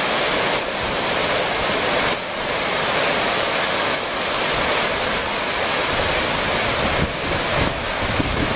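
A river in flood rushing fast, a steady, loud noise of churning water. Wind buffets the microphone now and then, adding low rumbles in the last couple of seconds.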